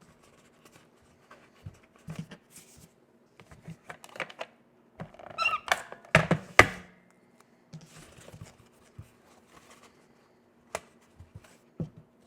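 Cardstock paper being handled and pressed into place: scattered rustles, small taps and clicks, with a busier flurry of crinkling and two sharp clicks about six seconds in.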